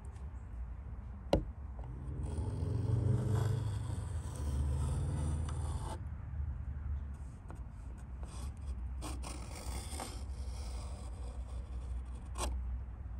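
Pencil compass drawing circles on wood: the pencil lead scraping across the grain in two spells of strokes, with a sharp tap about a second in and another near the end.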